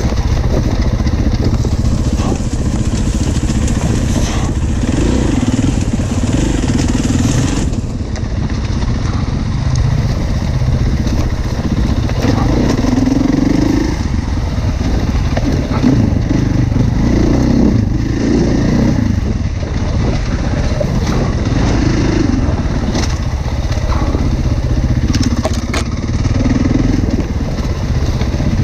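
Enduro motorcycle engine running under load on a trail ride, its revs rising and falling again and again as the throttle is opened and eased.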